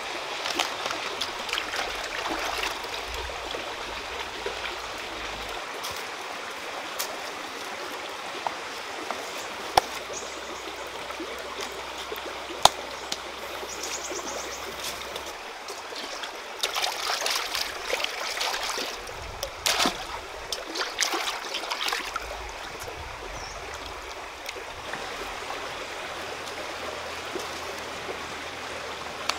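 Shallow stream running over rocks, a steady rush of water. Scattered sharp clicks and knocks break it, with a few louder scraping bursts around the middle.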